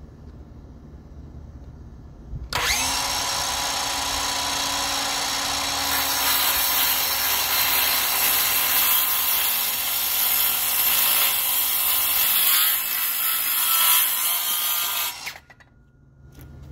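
Milwaukee circular saw with a Spyder Tarantula 6-1/2-inch, 24-tooth framing blade starting suddenly about two and a half seconds in and cutting through a wooden board, a steady loud whine and rasp that gets louder and brighter about six seconds in. It stops sharply about a second before the end.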